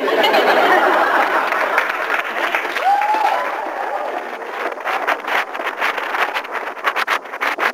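Studio audience laughing and applauding. The clapping grows sharper and more distinct after about five seconds.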